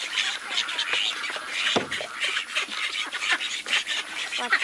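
Poultry flock at the coop: a busy run of short scratchy calls and clucks, with pitched honking calls starting near the end.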